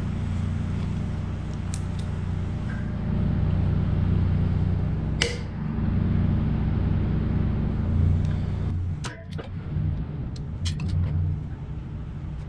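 A low engine drone runs unevenly throughout, dipping about nine seconds in. Over it, locking pliers and the air compressor motor's pulley clink as metal on metal: one sharp clank about five seconds in and a few lighter clicks near the end.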